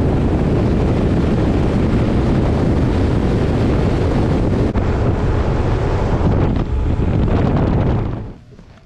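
Heavy wind buffeting the microphone over the rush of a boat running at speed behind a Mercury outboard. It drops away suddenly near the end.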